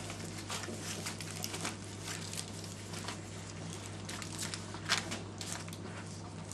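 Flat-coated retriever puppy worrying a toy octopus: irregular crinkling, tearing and scuffling noises with many small clicks, and one louder knock about five seconds in, over a steady low hum.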